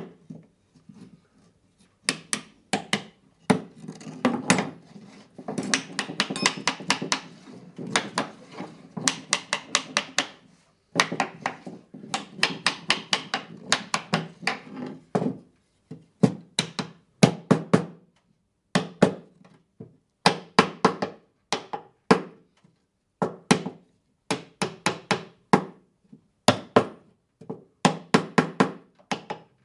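Small hammer tapping the mitred corner joints of a wooden picture frame to drive them home: fast runs of sharp taps, dense through the first half, then shorter runs with brief pauses.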